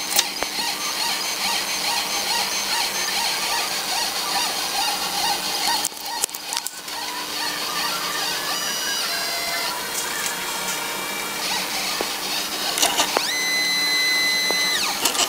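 Stepper motors of an Arduino-driven CNC plotter whining as they drive the axes, with a few clicks. Near the end a pitched whine rises in, holds for about two seconds and falls away as a move speeds up and slows down.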